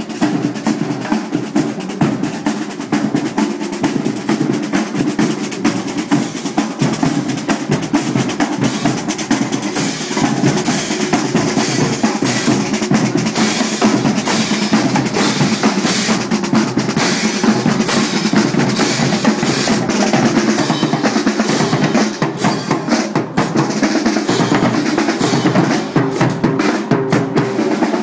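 High school marching band drumline playing a continuous cadence on snare and bass drums, with sharper, brighter strikes joining about ten seconds in.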